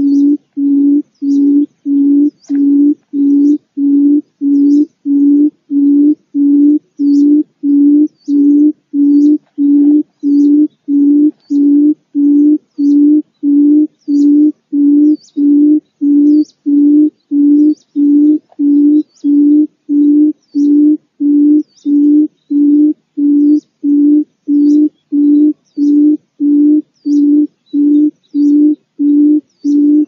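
Barred buttonquail's low hooting call: short, hollow hoots repeated evenly a little under twice a second, with faint high chirps above them.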